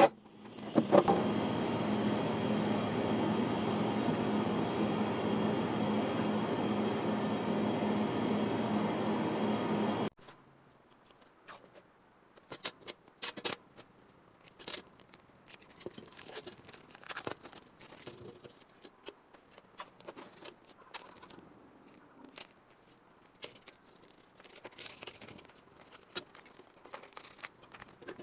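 A steady mechanical running sound, likely a machine or power tool, cuts off abruptly about ten seconds in. It is followed by scattered light clicks and scrapes of hand work on sheet-metal body panels.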